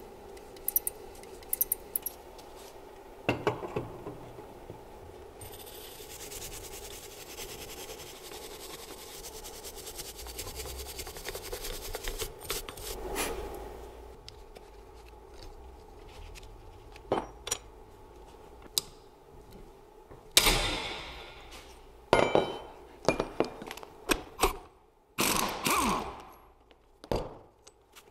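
Metal handling sounds from a car alternator being turned in gloved hands and set into a steel bench vise: scrapes, clicks and knocks, sharper and more frequent in the last third. A steady low hum runs under the first half.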